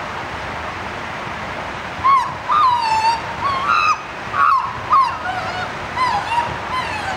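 A series of high-pitched animal calls, each sliding and bending in pitch, starting about two seconds in and repeating with short gaps. A steady hiss of background noise runs underneath.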